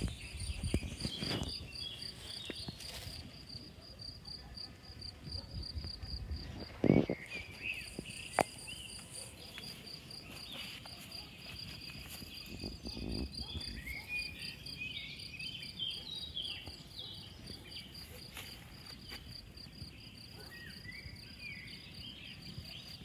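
Cricket chirping steadily in an evenly pulsed, high-pitched trill. Short twittering calls come and go over it, and there is a single thump about seven seconds in.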